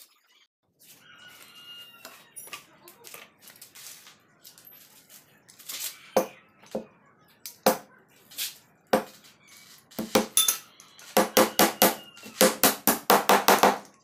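Hammer nailing a particleboard speaker-box panel. Single sharp blows come about a second apart from about six seconds in, then quick runs of several blows a second from about eleven seconds on.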